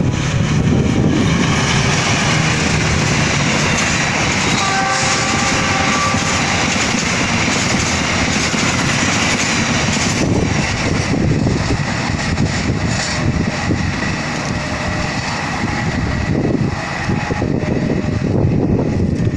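Argo Muria express passenger train running through a station at speed: a continuous loud rumble and rush of wheels on rail, with a few short tones breaking through around five to six seconds in.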